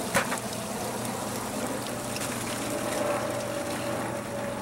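Water from a pump's discharge hose pouring steadily into a plastic bucket, a continuous splashing rush, with one sharp knock just after the start.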